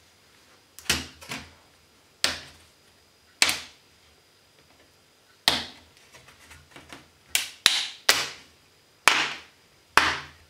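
Plastic clips of an Acer Aspire F15 laptop's screen bezel snapping loose as the bezel is pried off by hand: about ten sharp plastic snaps at irregular intervals, a few in quick pairs, with fainter small clicks in between.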